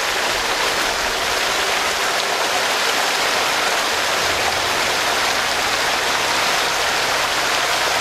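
Steady rushing of water churning into an irrigation ditch, an unbroken splashing hiss.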